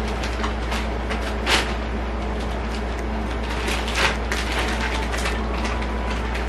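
Clear plastic vacuum compression bag rustling and crinkling as hands press and smooth it over packed clothes, with sharper crinkles about 1.5 and 4 seconds in, over a steady low hum and hiss.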